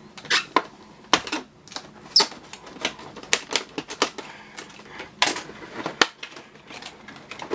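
Plastic packaging being cut and pried off a plastic toy ramp on a cardboard tray: a run of irregular sharp clicks and snaps.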